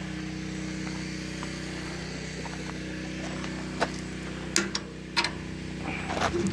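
John Deere 790 compact tractor's diesel engine idling steadily, with a few sharp clicks or knocks about two-thirds of the way in.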